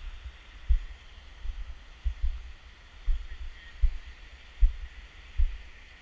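Low thuds of walking footsteps jarring a carried camera, about one step every 0.8 seconds, over a faint steady hiss.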